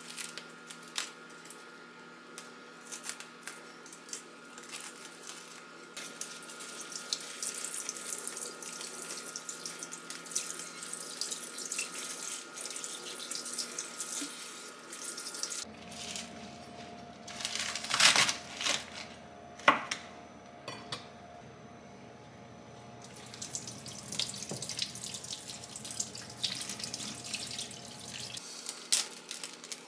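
Kitchen tap running into a stainless steel sink while long green onions are rinsed by hand under it. The water noise comes and goes, with two sharp knocks about two-thirds of the way through.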